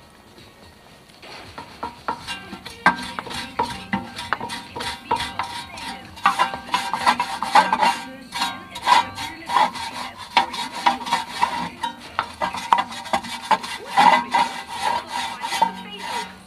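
Hand wire brush scrubbing the rusty rear wheel hub and brake disc of a Seat Ibiza, back-and-forth scraping strokes about twice a second, starting about a second in.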